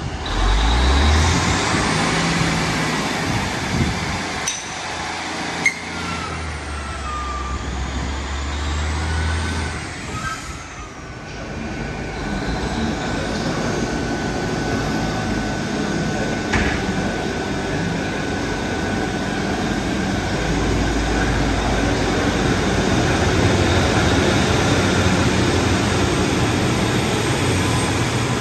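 Diesel multiple unit's underfloor engines running and revving up in steps as the train draws away from the platform, the low rumble building toward the end. A sharp clank about five and a half seconds in, and a steady high whine for a few seconds in the middle.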